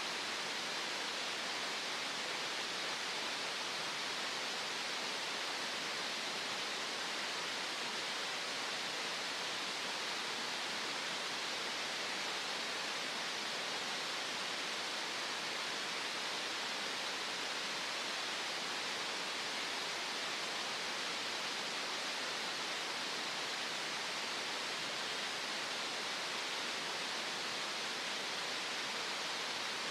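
Green noise: a steady, even hiss of synthetic noise, strongest in the upper middle and thin in the bass, unchanging throughout.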